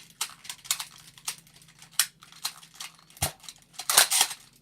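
Hard plastic clicking and rattling as a Boomco toy blaster is handled. There is a string of short clicks, with a sharper knock about three seconds in and a loud cluster of clicks around four seconds.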